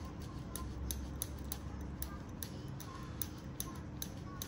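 A scalpel blade scraping and paring a thick toenail infected with onychomycosis, in short quick strokes about three a second, each a small crisp scratch.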